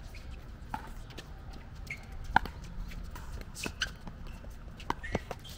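Pickleball play: a string of sharp, irregular pops, from paddles striking the plastic ball and the ball bouncing on the court. The loudest pop comes about two and a half seconds in.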